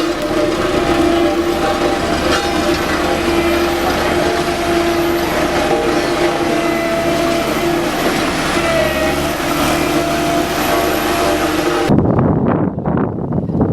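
Heavy diesel construction machinery running steadily with a droning engine note. It cuts off abruptly near the end, giving way to wind buffeting the microphone.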